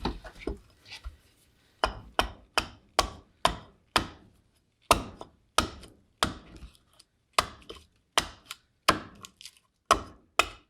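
Hatchet chopping into a green black walnut bowl blank set on a stump, roughing it down: a run of sharp, separate strikes, about two a second with short pauses, starting about two seconds in.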